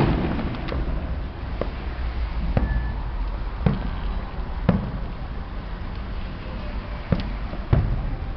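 Fireworks going off: a string of sharp bangs and pops at irregular intervals, about one a second, the loudest right at the start. Under them runs a steady low rumble.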